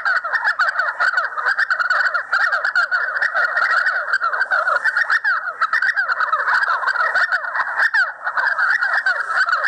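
Dense, unbroken chorus of many animals calling at once: short quick calls that slide in pitch and overlap without a break.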